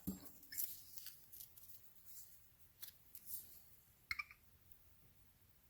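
Faint snips and light clicks of scissors cutting paper cap-gun caps, with a sharper click about four seconds in.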